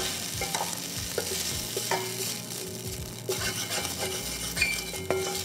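Seared beef sizzling in a hot wok as a wooden spatula scrapes it out, with scattered light scrapes, clicks and brief clinks of spatula on the pan.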